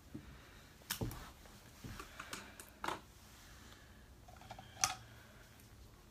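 A handful of light, scattered clicks and taps from makeup items being handled, the loudest near the end, over faint room tone.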